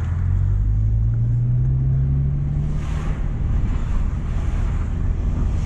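Renault Clio Mk1's D7F 8-valve four-cylinder petrol engine under way, heard from inside the cabin over road noise: the engine note rises steadily as the car accelerates, then drops away about three seconds in.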